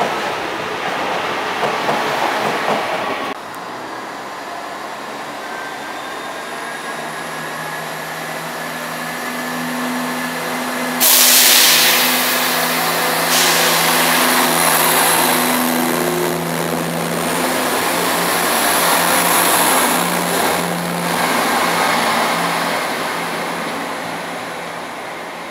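A train passing through the station at speed, then a Northern multiple unit pulling out along the platform: a steady hum with faint whines rising in pitch as it gathers speed, and a sudden loud hiss about 11 seconds in.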